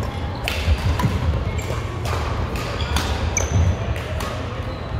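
Badminton rally in a large hall: sharp racket strikes on a shuttlecock come every half second to a second, with a few short shoe squeaks on the court mat, over a steady low rumble.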